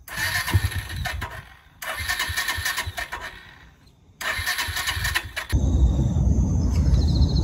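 Suzuki TU250X single-cylinder engine being cranked by its electric starter in three tries, each cutting off without the engine catching: a no-start, which the owner sets out to cure with a new battery and spark plug. About five and a half seconds in, this gives way to a steady low outdoor rumble.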